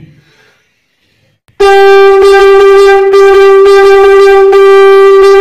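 Conch shell (shankh) blown after about a second and a half of near silence: it starts suddenly on one loud, steady note, broken by quick rhythmic breaks as the player articulates the tabla rhythm 'dhin tinak dhin'.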